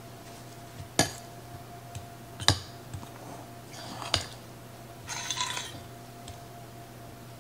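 A metal utensil clinking against a glass mixing bowl three times, about a second and a half apart, then a brief scraping as it stirs through biscuit dough, over a faint steady hum.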